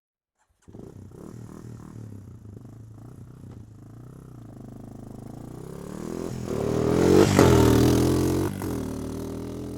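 Quad bike (ATV) engine that comes in suddenly about half a second in, running at low revs. It then revs up and grows louder, is loudest around seven seconds in, and eases off again towards the end.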